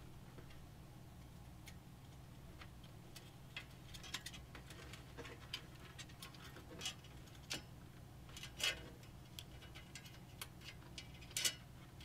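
Scattered light clicks and ticks of PC front-panel and USB header cables being handled and routed inside a computer case, irregular and quiet, picking up after a few seconds with two sharper clicks, the last near the end. A steady low hum runs underneath.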